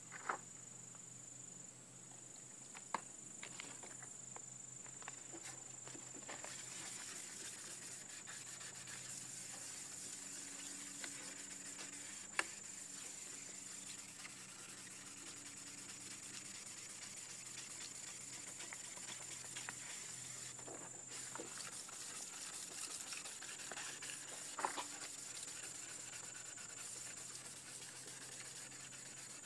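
Faint rasping rub of 1000-grit wet sandpaper worked by hand over a plastic car headlight lens, wearing away its yellowed outer layer. A steady high-pitched insect buzz runs underneath, with a few sharp clicks.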